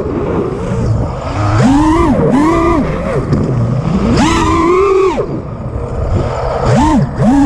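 FPV quadcopter's brushless motors and propellers whining, heard from the quad's own onboard camera, the pitch swooping up and down several times as the throttle is punched and cut through flips and rolls, over a rush of wind.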